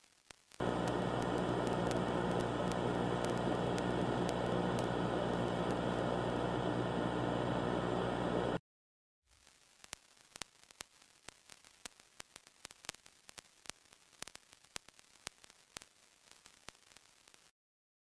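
Loud steady static hiss with a low hum underneath, cutting off suddenly at about eight and a half seconds. After a short silence comes a faint crackle with scattered clicks, which stops shortly before the end.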